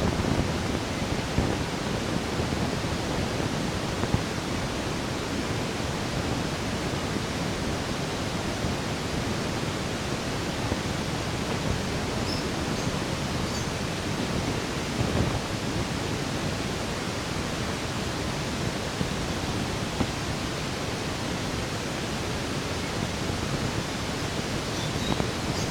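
Steady, even hiss of background noise with no distinct sound events.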